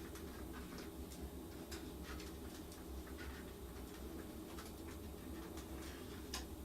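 New lathe running steadily during its initial startup test, a low even hum with scattered faint ticks and clicks over it.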